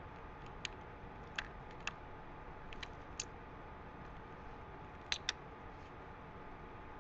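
Kitchen knife chopping Swiss chard on a cutting board: a few light, irregularly spaced knocks of the blade against the board, two in quick succession about five seconds in, over a steady background hiss.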